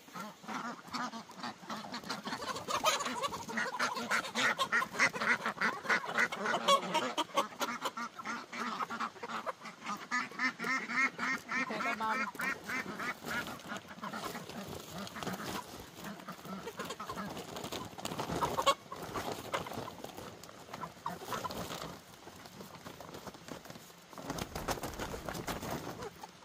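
A flock of domestic waterfowl calling rapidly and continuously, the calls overlapping, densest in the first half and thinning out later.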